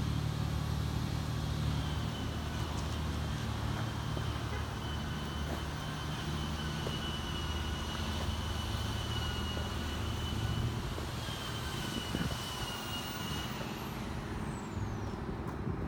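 2012 Harley-Davidson Forty-Eight's 1200 cc air-cooled V-twin idling steadily through a Vance & Hines aftermarket exhaust.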